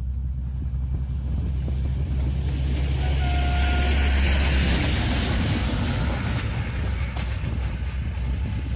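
Regional passenger train passing, its noise swelling to a peak about four to five seconds in and then easing off, over a steady rumble of wind on the microphone. A brief high tone sounds for under a second just after three seconds in.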